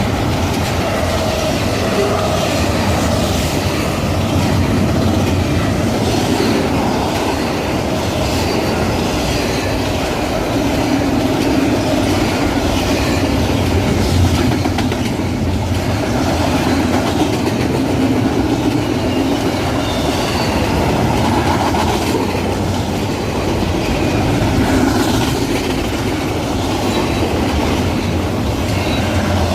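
A CP Rail freight train of container and autorack cars rolls past close by, a steady loud rumble with the wheels clacking over the rail joints.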